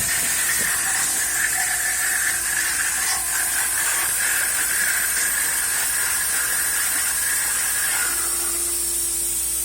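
CNC router spindle running with a three-flute end mill cutting at 2 mm depth: a steady hiss with a high, even squeal from the cut. About eight seconds in the squeal drops away and a lower steady hum takes over.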